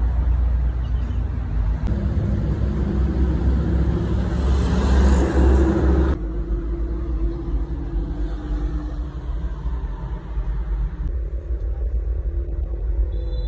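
Diesel engine of a small wheel loader running, a steady deep rumble. It grows louder and fuller for a few seconds, then drops back abruptly about six seconds in.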